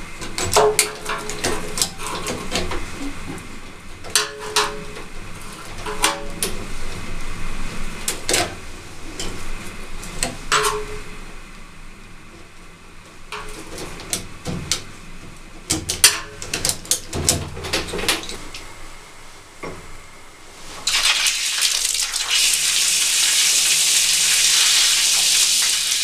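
Small metal clicks and knocks of a screwdriver working on a well pump pressure switch. About 21 seconds in a steady, loud hiss starts as water sprays out of the open pressure-gauge port: the pressure left in the well system draining off.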